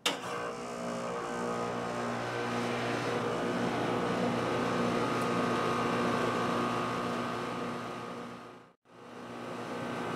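Trane central air conditioner's outdoor condensing unit running, with a steady hum from the compressor and condenser fan. It is running properly on a newly fitted run capacitor. The sound fades out briefly about nine seconds in and comes back.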